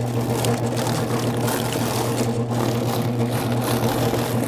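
Electric drum chicken plucker running with a steady motor hum, its spinning rubber fingers scraping and slapping against a scalded chicken held to the drum as they strip off the feathers.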